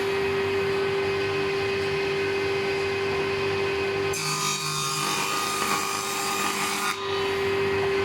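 A woodworking power tool cutting or sanding hardwood: a steady motor hum under a continuous rasp of wood. The sound changes abruptly about four seconds in, when the hum drops out, and again about seven seconds in, when it returns.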